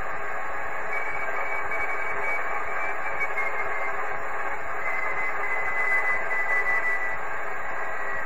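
Radio receiver static: a steady, narrow-band hiss with a faint whistling tone that slowly falls in pitch, once about a second in and again around five seconds in.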